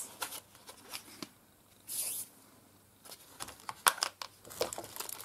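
Small hard plastic trays being handled and nested together, with light plastic clicks, taps and rustling. There is a brief hiss about two seconds in, and the clicks and taps come more often from about three seconds on.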